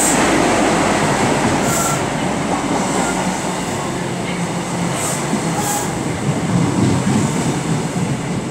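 Great Western Railway InterCity 125 High Speed Train arriving at a platform: its Mark 3 coaches roll past with a steady rumble of wheels on the rails. A few short hisses sound over it about two, five and nearly six seconds in.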